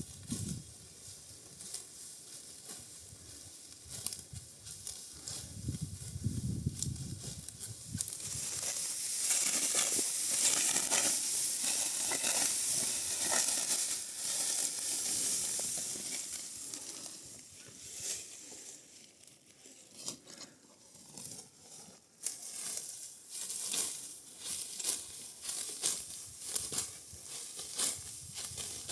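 Dry, ripe wheat stalks crunching and rustling as they are cut and handled. It is a dense crackling hiss, loudest for several seconds in the middle, with sharper snaps and crackles toward the end.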